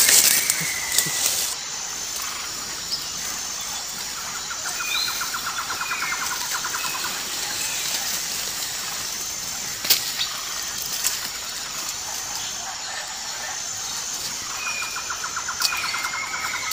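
Rainforest ambience: a steady high insect hiss with birds calling in short whistled notes, and a rapid pulsing trill that comes twice, a few seconds each time. A single sharp click about midway.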